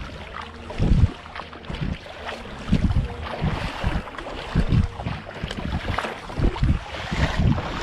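Wind buffeting the microphone in irregular low gusts, over a steady hiss.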